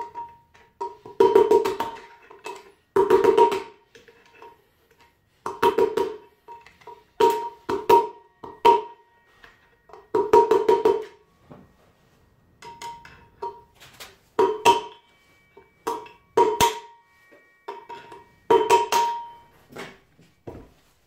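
Hammer blows on a screwdriver used as a drift through a scooter's alloy wheel hub, knocking out the wheel bearing. The blows come in about a dozen groups of a few quick strikes, with pauses between, and the metal rings briefly after each group.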